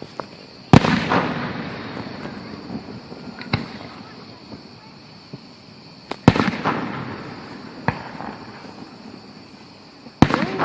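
Aerial fireworks bursting: three loud booms, each trailing off in a crackling, rumbling echo, with a couple of smaller pops in between.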